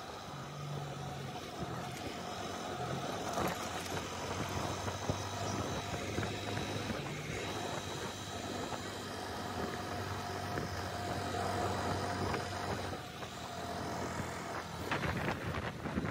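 Motorcycle engine running steadily at cruising speed, with wind and road noise. About fifteen seconds in, a rough rush of wind noise buffets the microphone.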